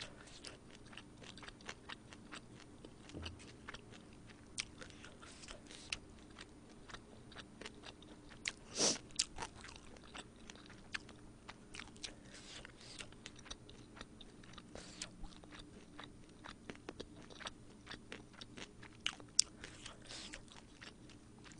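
Close-miked eating sounds of a person chewing and biting food from a Korean bossam meal of boiled pork, kimchi and buckwheat noodles: soft wet chewing with many small clicks and crunches, and one louder mouth sound a little before the middle.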